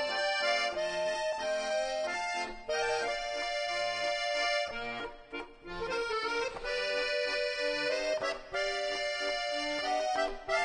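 Instrumental background music with held chords that change every second or so.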